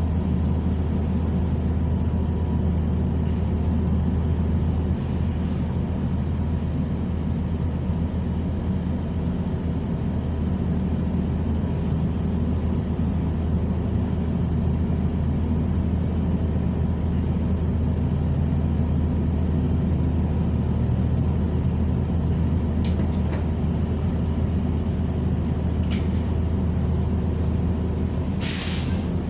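Steady low drone of a New Flyer XN40 natural-gas city bus running, heard from inside the cabin, with a short sharp hiss of air near the end.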